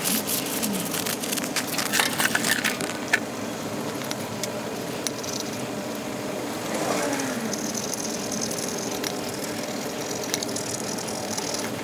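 Shop towel rubbing over a metal camshaft seal housing, with small clicks and rattles as the part is handled. The rubbing is busiest in the first few seconds and then gives way to lighter handling over a steady low hum.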